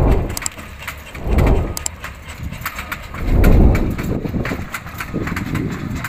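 Wind buffeting the microphone in four gusty low rumbles, with small crackles in between.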